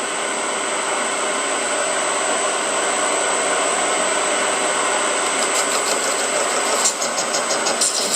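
Metal lathe running with a steady high whine as a parting tool cuts into the stock. About five and a half seconds in, a fast rhythmic ticking joins it; the vibration dies away once the part-off is done.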